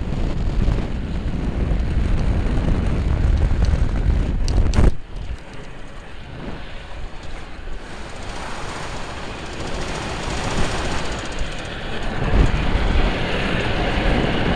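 Wind buffeting the microphone of a helmet camera on an unpowered sidecar soapbox cart speeding downhill, mixed with the rolling noise of its wheels on tarmac. A sharp knock comes about five seconds in, after which the heavy wind rumble drops and a steadier hiss carries on.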